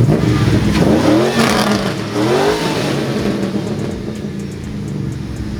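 Chevrolet Camaro engine accelerating hard, the revs climbing twice with a drop between as it shifts up a gear. It then settles into a steadier drone.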